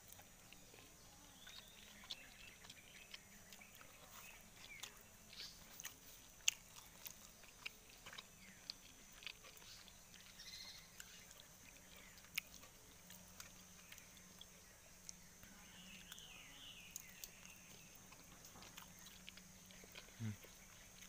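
Near silence, with faint scattered clicks and ticks and a few faint high chirps near the end.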